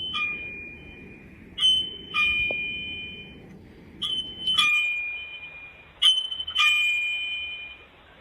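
Electronic doorbell chime going off again and again: four falling two-note ding-dongs, about two seconds apart, each note ringing out and fading.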